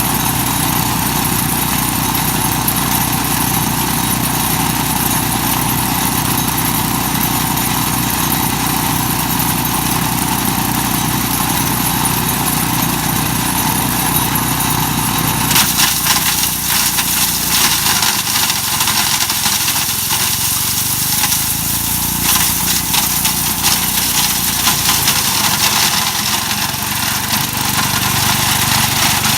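Mighty Mac wood chipper's engine running steadily; about halfway through the low rumble drops away and a dense crackling rattle of hard pieces being chipped comes in, as walnuts go through the chipper.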